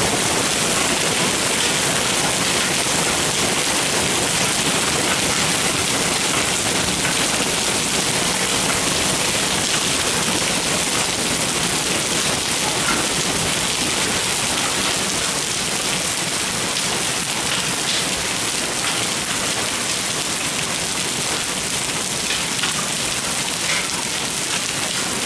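Hail about the size of garbanzo beans coming down steadily on gravel and flagstones, making a dense, even hiss of countless small impacts.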